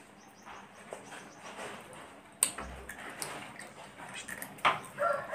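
A child eating cooked blue swimming crab, picking and biting at a crab leg, with quiet mouth and chewing sounds and a few sharp clicks, the loudest about two and a half seconds in and more near the end.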